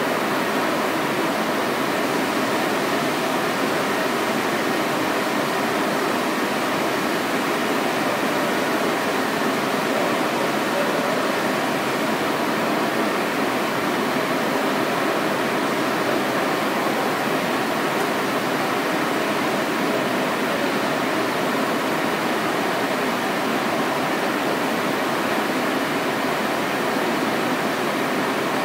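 Steady rushing air of a manual electrostatic powder coating booth while powder is sprayed from the hand gun, a constant even rush with no breaks.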